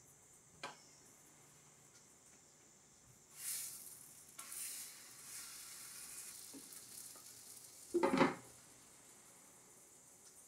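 Naan dough sizzling as it is laid into a hot frying pan, the hiss starting about three and a half seconds in. A little after eight seconds a see-through pan lid is set down on the pan with a short, loud knock.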